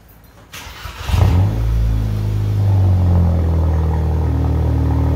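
Straight-piped Volkswagen MK5 GTI's turbocharged 2.0-litre four-cylinder starting. A short crank about half a second in, then it catches about a second in with a flare of revs and settles into a steady, loud idle.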